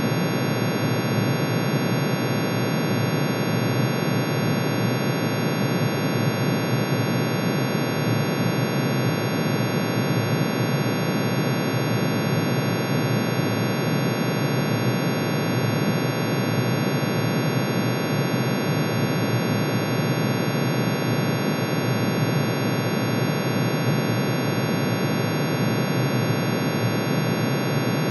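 Steady synthesized drone of many summed sine tones: iron's atomic emission spectrum, each spectral line turned into an audible pitch. The tones are so dense at the bottom that they blur into a rough, noisy hum, with distinct high tones above. It holds unchanged throughout.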